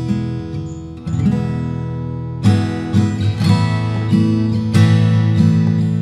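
Saga SF830GC acoustic guitar (solid Sitka spruce top, mahogany back and sides). Fingerpicked notes ring out and fade over the first second, followed by lighter picking. About two and a half seconds in, the player switches to strummed chords in a steady rhythm.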